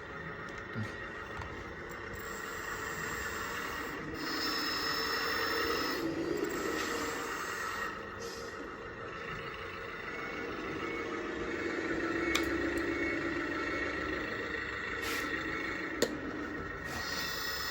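Hydraulic pump and motors of a 1/14-scale RC backhoe loader whining steadily, growing louder twice as the hydraulics work, with a few light clicks.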